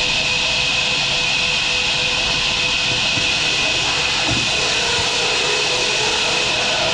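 Machinery running with a steady, loud hiss that does not change.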